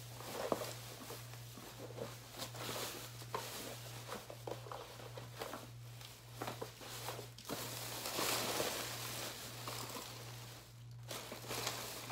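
Plastic bags and candy wrappers rustling and crinkling as packaged sweets are rummaged through and handled, in irregular bursts of crackle with a busier stretch late on.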